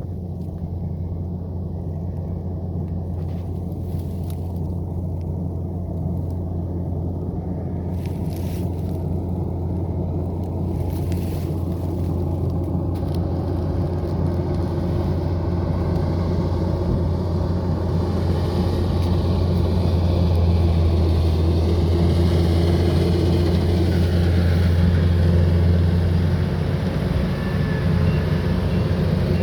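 Rice harvester running with a steady low engine drone that grows gradually louder. A rougher, higher machine noise joins about halfway.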